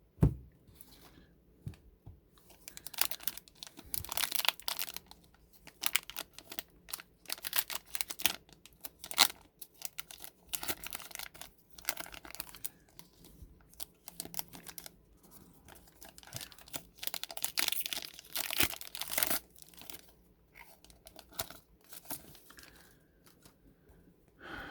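Trading-card pack wrapper being torn open and crinkled while the cards are handled: a long run of irregular crackling rustles.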